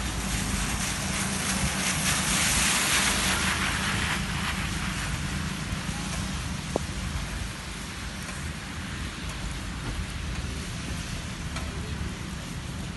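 Steady rain falling, an even hiss that swells louder for a few seconds about a second in, over a low steady rumble, with one sharp tick about halfway through.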